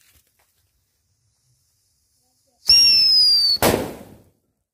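Whistling Thunder firecracker buried in a sand mound going off: after a near-silent fuse burn, a shrill whistle starts under three seconds in and falls slightly in pitch for about a second, then it ends in a single loud bang.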